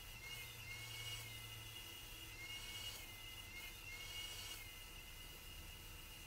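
Faint steady high whine of an HVLP turbine sprayer running, with a soft hiss of spraying that swells a few times.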